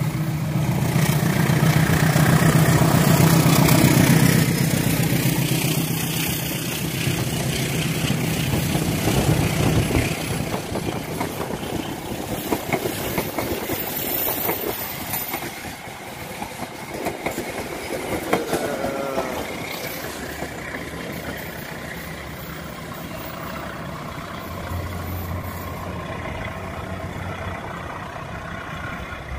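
Diesel-electric locomotive, which the railfan takes for a CC 201, passing close with a steady low engine drone that is loudest in the first few seconds. Then the passenger coaches roll by with rhythmic wheel clatter on the rails, and the sound fades as the train moves away.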